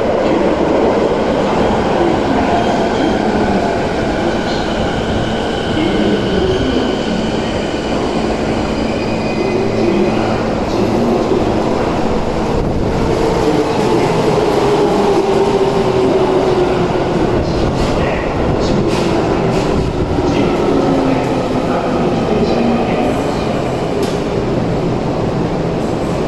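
Keio 9000 series electric train running into an underground station and braking: steady wheel-on-rail rumble with the whine of its VVVF inverter traction motors, the pitch falling gently as it slows to a stop. A few sharp clicks come near the end.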